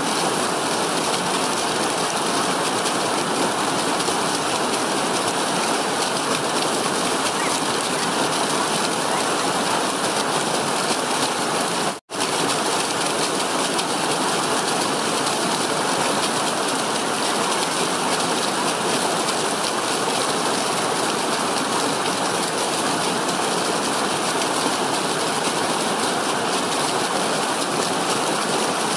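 A small stream cascading over rocks, a steady rush of white water. The sound cuts out for an instant about twelve seconds in, then carries on unchanged.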